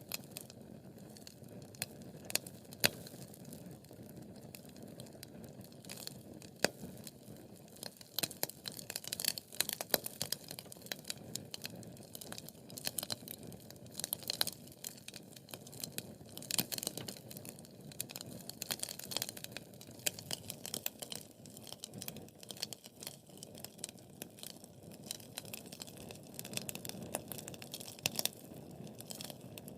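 Wood fire crackling steadily: irregular sharp pops and snaps from burning logs over a low hiss of flame.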